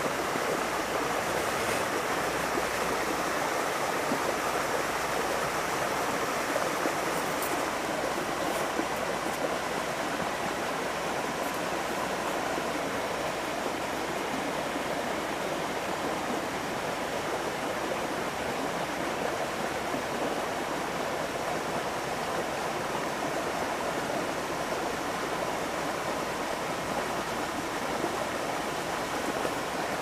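Small waterfall's steady rush of falling water, an even splashing noise that does not change.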